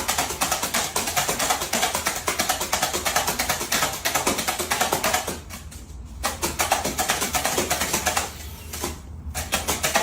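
Background music with a fast, steady percussion beat that drops out briefly twice, once in the middle and once near the end.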